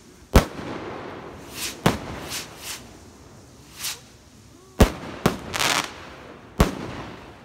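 Funke 15-gram star rockets launching with hissing whooshes and bursting in about five sharp bangs, the loudest in the first second and just before five seconds in.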